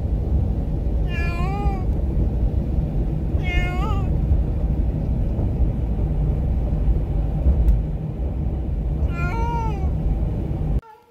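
A domestic cat in a plastic pet carrier meowing three times, drawn-out calls that rise and then fall in pitch: an injured cat agitated at riding in the car. Under the meows runs the steady low rumble of the car, which cuts off suddenly near the end.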